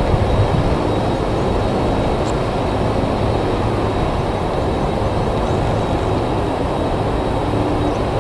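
Jet engines of a Boeing 747-400F freighter running with a steady low rumble while the aircraft moves slowly along the ground. A faint thin high whine sits above the rumble.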